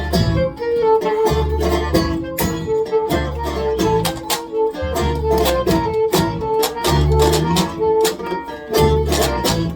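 Live folk band playing an instrumental passage: a repeating high melody line over strummed guitar, bass notes and steady drum hits.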